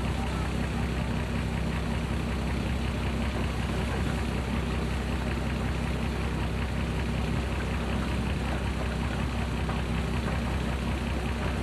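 Boat engine running steadily, heard from on board: a constant low hum under an even rush of noise that does not change.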